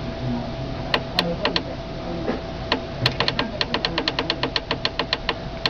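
Keypad of a Watlow oven controller clicking as the time setting is stepped down with the down-arrow key. A few scattered clicks come first, then about three seconds in a fast even run of about six clicks a second, stopping near the end, over a faint steady hum.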